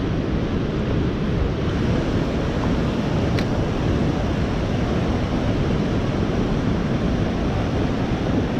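Steady rush of flowing creek water, with a single sharp click a little over three seconds in.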